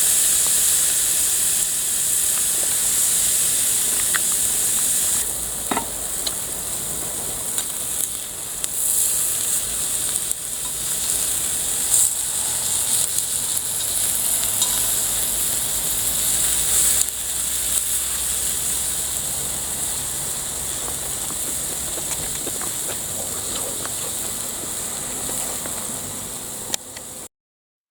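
Food sizzling as it fries in a pan, a steady hiss with scattered pops. It cuts off suddenly near the end.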